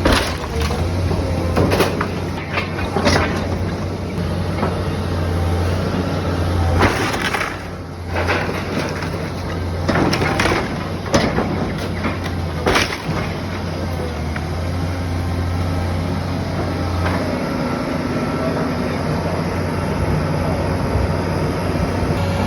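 Wooden structure being torn down: wood cracking and breaking in repeated sharp impacts, most frequent in the first half, over a steady low machine hum. The impacts thin out after about thirteen seconds, leaving mostly the hum with one more crack later on.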